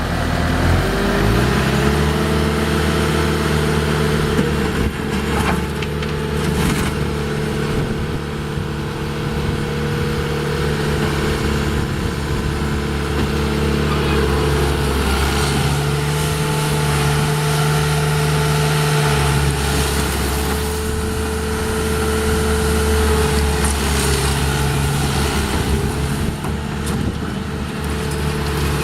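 Diesel engine of a 2011 Bobcat T750 tracked skid steer loader running steadily. Its speed rises about a second in and shifts up and down a few times after.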